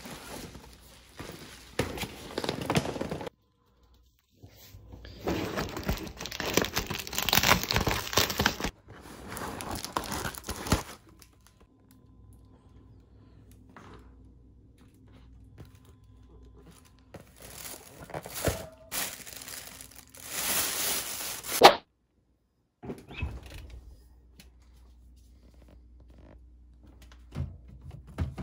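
A paper delivery bag and plastic packaging being handled and unpacked: rustling, crinkling and tearing in several separate bursts, with a few sharp knocks as items are set down.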